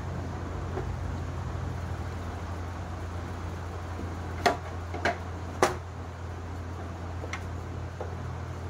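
A cloth wiping down a black plastic salon tool trolley, with three sharp knocks about halfway through as hands and things bump the plastic, and a fainter knock later, over a steady low hum.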